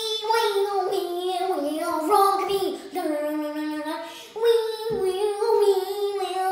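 A girl singing solo in a deliberately exaggerated, mock-bad style, holding long notes that slide and waver up and down in pitch with only brief breaks for breath.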